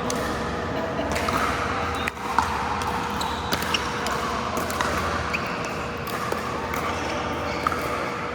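Pickleball paddles popping against the plastic ball and the ball bouncing on an indoor court: many scattered sharp hits, the loudest about two and a half seconds in. A faint steady hum runs underneath.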